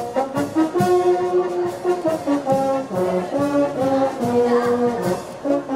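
Brass band music: held brass notes that change step by step over regular drum beats.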